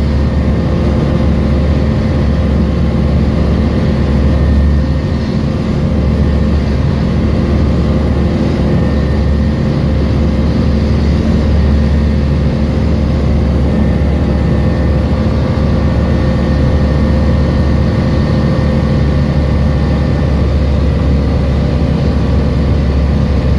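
Tecnam P96 light aircraft's piston engine and propeller running steadily at constant power, an even hum with no change in pitch.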